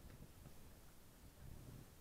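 Near silence, with a faint low rumble.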